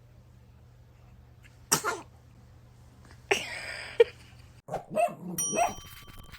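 A baby sneezing hard: a sudden burst about two seconds in, then a longer, noisier one about a second later that ends in a short sharp knock. Near the end a bell-like ding rings out over some voices.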